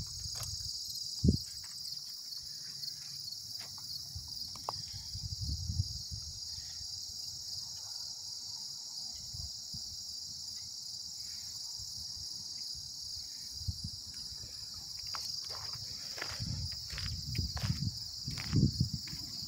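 Steady high-pitched chorus of insects chirring in the fields, with some low rumbling on the microphone. Near the end come several short crunching clicks, like footsteps on gravel.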